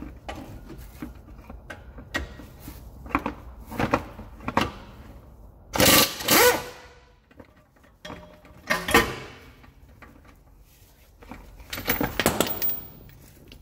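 Pneumatic impact wrench hammering in several short bursts, loosening the bolts behind the front brake caliper. The loudest is a double burst about six seconds in, with further bursts near nine and twelve seconds and lighter clicks before them.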